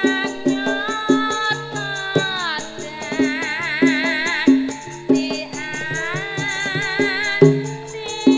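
Javanese gamelan playing, with bronze gong-chimes and metallophones struck in a steady pulse under a female sinden's solo voice. She glides down about two seconds in, then holds long notes with wide vibrato.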